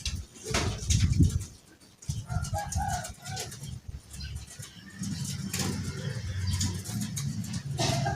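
Zebra dove (perkutut, Bangkok song strain) cooing a short phrase of soft notes about two to three seconds in, with wind rumbling on the microphone throughout.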